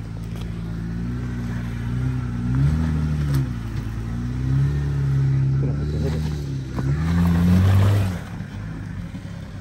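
Jeep Gladiator's 3.6-litre V6 under throttle while rock crawling, its engine note rising and falling several times and dropping back to a lower idle near the end.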